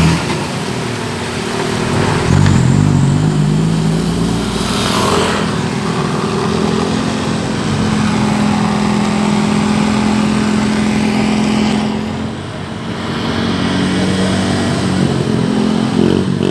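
Motor vehicle engines running close by: the engine pitch shifts a few seconds in, then a steady engine drone holds for several seconds.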